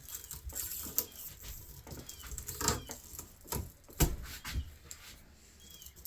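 Pliers gripping and pulling copper windings out of a ceiling fan motor: an irregular string of sharp clicks and small metal knocks, the loudest about four seconds in.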